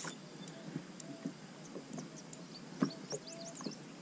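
Quiet open-water ambience with faint bird calls: short steady notes, then a few quick rising chirps near the end. A sharp knock a little under three seconds in is the loudest sound.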